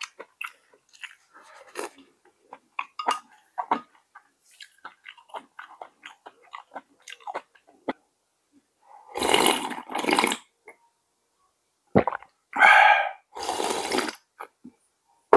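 A person eating pork jjageuli stew, close-miked: chewing with many small wet clicks and smacks, then several louder breathy bursts and one sharp click in the second half.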